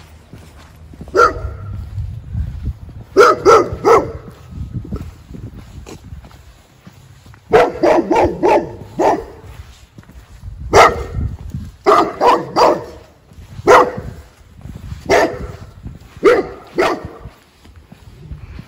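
Guard dog barking at passers-by in repeated short bursts of one to four barks, guarding its territory.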